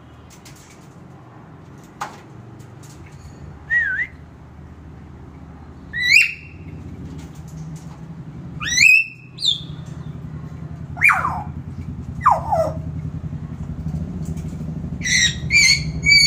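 Nias hill myna giving loud whistled calls every few seconds: some rise, two fall steeply about two-thirds of the way in, and a quick run of repeated whistles comes near the end.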